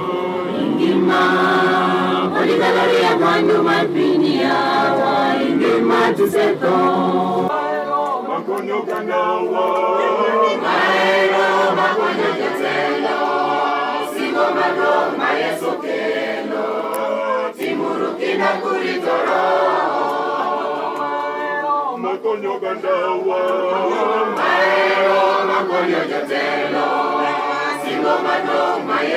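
A church congregation singing a hymn together, men's and women's voices in chorus.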